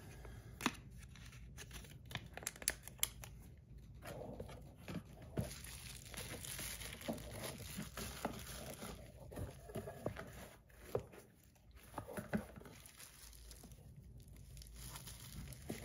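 Quiet handling noise: a small plastic zip bag crinkling and many scattered light clicks and taps as small bearing tools and parts are packed away.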